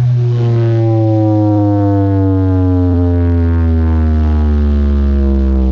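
A loud sound system playing through big subwoofers: a deep, steady sub-bass drone under a stack of tones that glide slowly down in pitch.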